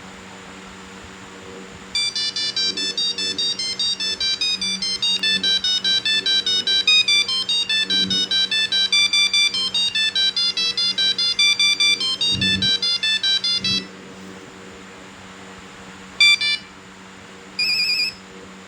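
Nokia 1100 mobile phone playing a monophonic ringtone: a fast melody of single beeping notes that starts about two seconds in and lasts about twelve seconds, followed by two short beeps near the end. A low steady hum runs underneath.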